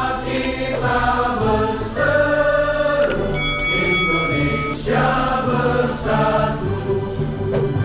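A roomful of people standing and singing a song together as a group, over music.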